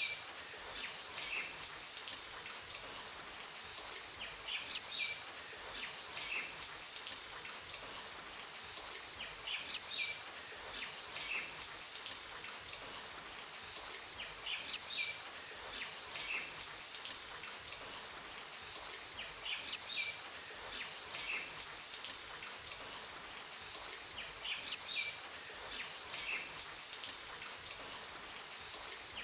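Steady rain hiss with short, high bird chirps in pairs. The same pattern comes back about every five seconds, as in a looped rain-and-birdsong ambience track.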